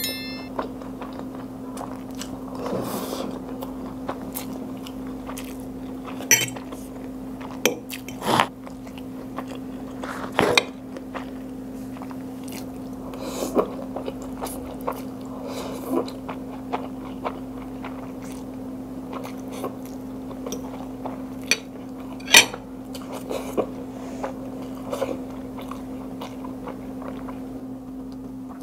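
Close-miked chewing and mouth sounds of a person eating fried noodles, with occasional short, sharp clicks over a steady low hum.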